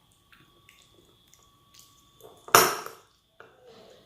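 Eating sounds at a meal: faint clicks of cutlery against a plate, and one brief louder noise about two and a half seconds in.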